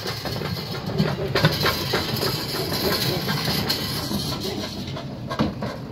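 Flatbed tow truck's engine running steadily as it winches a crashed pickup truck up its tilted bed.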